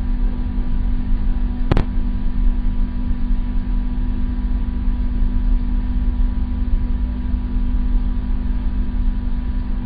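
Steady low hum and rumble with one sharp click about two seconds in.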